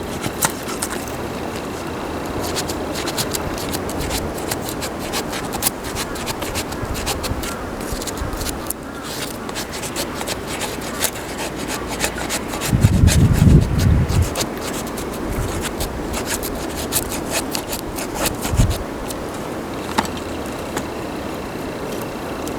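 Wood fire crackling: frequent sharp pops and snaps over a steady hiss. A louder low rumble comes about thirteen seconds in, and a shorter one a few seconds later.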